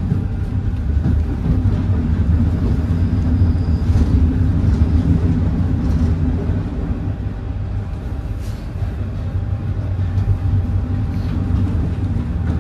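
Paris Métro train running between stations, heard from inside the carriage: a steady low rumble with a faint steady whine and a few brief, faint high squeals.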